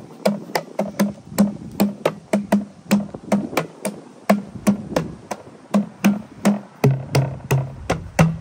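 Outdoor playground tube drums with coloured pads struck by hand in a quick, steady rhythm of about three hits a second, each a short pitched thump. Near the end the beats move to a lower-pitched drum.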